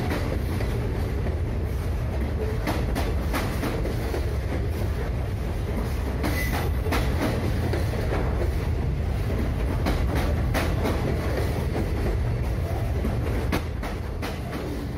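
Z scale model freight train rolling past: a steady low rumble with scattered clicks from the wagons on the track, dropping away near the end as the last car goes by.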